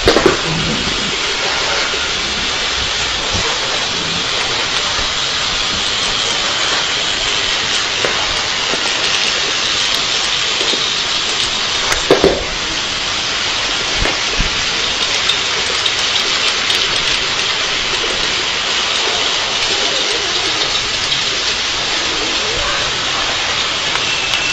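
Toy electric train running round its track: a steady, even hiss-like rattle, with a short knock at the start and another about twelve seconds in.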